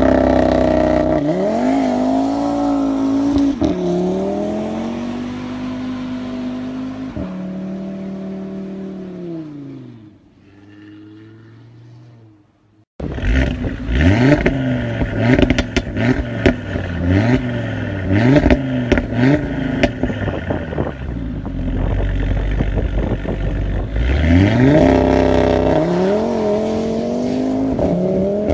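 Audi RS3's turbocharged five-cylinder engine revving as the car accelerates away, its pitch rising and falling through the gears and fading out about ten seconds in. After a brief silence, a second RS3 revs in a run of short blips with sharp crackles, then climbs in one long rising rev as it pulls away.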